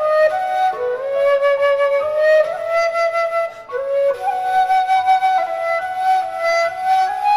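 Background music in a smooth, Chinese-style arrangement: a flute plays a slow melody of held notes, with a brief pause between phrases about three and a half seconds in.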